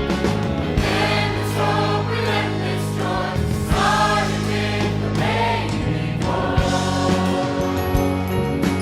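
A vocal group singing a gospel Christmas song in harmony over a band with bass and drums.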